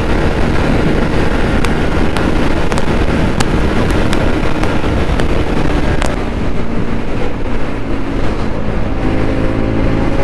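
Motorcycle riding at highway speed, with wind rushing over the microphone and a few sharp ticks. About six seconds in the wind rush eases and the engine's steady hum comes through, as the bike slows.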